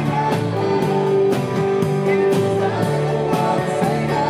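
Live rock band playing on stage: a steady drumbeat about three hits a second under electric guitars and singing, with one long held note in the first half.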